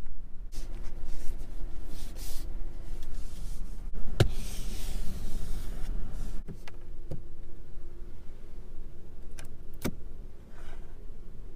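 Scattered light clicks and rustling from hands handling a car's rear-seat upholstery and door trim, with a short hiss after one click a few seconds in, over a faint steady hum and low rumble.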